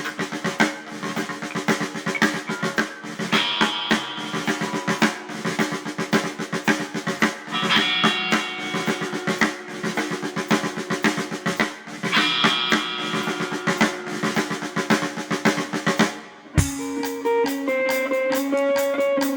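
Rock band playing an instrumental intro: a busy drum kit with snare rolls and rimshots drives the music over guitar chords. About three-quarters of the way through the full band cuts off abruptly and electric guitar carries on alone with ringing notes.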